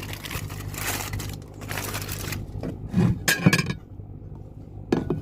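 Dishes and food containers being handled: irregular scraping with light clinks, loudest about three seconds in, over a steady low hum.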